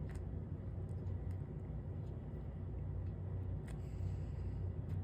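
Steady low hum with a few faint, light clicks of small foiled glass pieces being handled and pressed into place.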